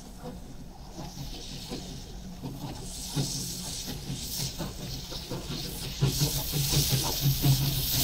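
North Shore Scenic Railroad steam locomotive No. 332 approaching under steam, a steady hiss of escaping steam that grows louder, with a clear jump about six seconds in as the engine draws near.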